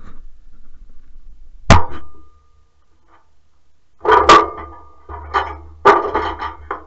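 Sharp metallic clank with a short ring about two seconds in, then a run of knocks and clanks from tools and steel parts being handled on a snow blower's frame.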